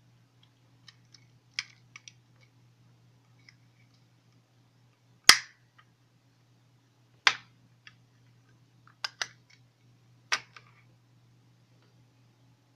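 Sharp plastic clicks and snaps from handling a lighter-shaped plastic e-liquid bottle and its case. There are four or five loud clicks a second or two apart, the loudest about five seconds in, with lighter taps between, over a faint steady low hum.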